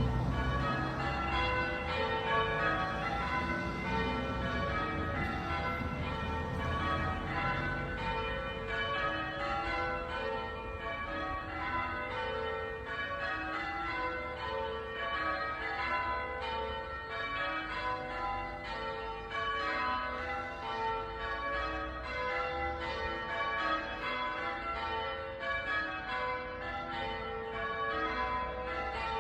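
The front five of a ring of eight church bells, cast by Taylor's of Loughborough in 1920, ringing in a continuous run of strikes, one bell after another, each note ringing on into the next.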